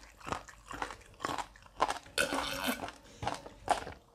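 Close-miked mouth sounds of eating rice, stew and barbecued chicken: chewing and wet clicks and smacks, irregular. A louder hissy stretch of about half a second comes a little past two seconds in.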